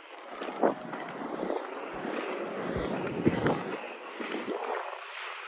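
Inline skate wheels rolling over pavement: a continuous rumbling hiss with two sharper knocks, one under a second in and one past three seconds, and wind buffeting the microphone.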